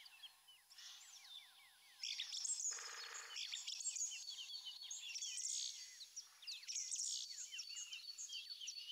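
Many small birds chirping and singing together in overlapping quick whistled notes, some falling and some rising. The chorus grows louder and busier about two seconds in, with a short buzzy call about three seconds in.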